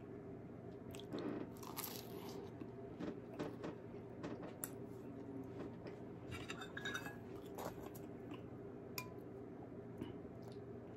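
Close-up eating sounds: a piece of croissant dipped in chicken soup being bitten and chewed, in scattered crunchy, crackly bursts. Near the end a metal spoon clinks a couple of times against the soup bowl.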